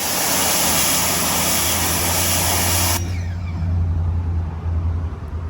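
Ryobi 1600 psi electric pressure washer jetting water through its 15-degree nozzle onto brick: a loud hiss of spray over the pump motor's hum. The spray cuts off suddenly about three seconds in, leaving a low uneven hum.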